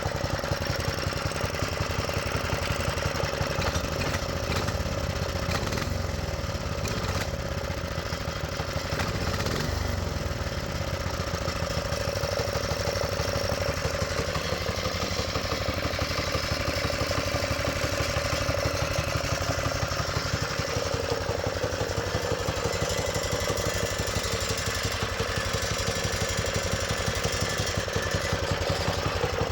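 Baja mini bike's 5.5 horsepower single-cylinder engine running steadily on a freshly fitted carburetor, with its governor bypassed.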